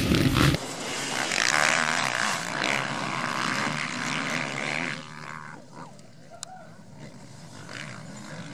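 A pack of motocross bikes racing through a corner, many engines revving hard and overlapping. The sound drops abruptly about five seconds in and carries on fainter, with one sharp click near the end.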